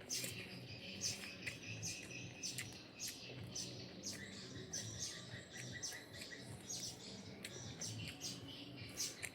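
Small birds chirping repeatedly: quick, high, falling chirps, two or three a second.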